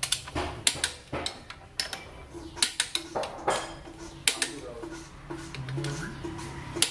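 Sharp metallic clicks and clinks of a socket wrench and extension being worked on bolts of an Isuzu Panther engine block during reassembly, the tool knocking against the metal several times.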